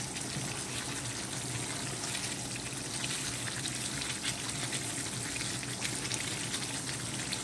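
Thick fish-head curry (gulai) simmering in a non-stick pan, a steady bubbling hiss with many small pops, while a wooden spatula stirs through it.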